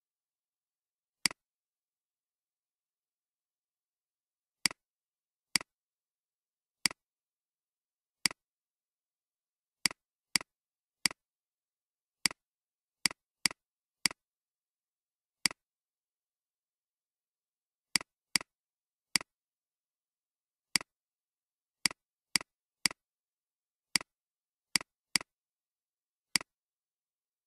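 Computer mouse button clicks: about two dozen single clicks at irregular intervals, each a quick press-and-release click-clack, with dead silence between them.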